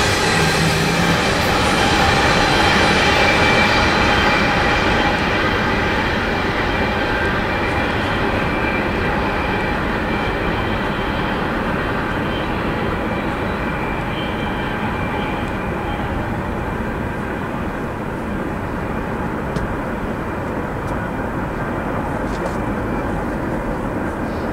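Double-stack intermodal freight train's well cars rolling on the rails as the end of the train passes and recedes, a steady rumble of wheels on track with a few ringing high tones, slowly fading and losing its high end over the first several seconds.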